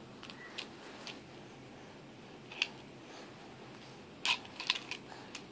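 Light, scattered clicks of plastic beads on a baby's wire bead toy as it is handled, with a quick cluster of clicks about four to five seconds in.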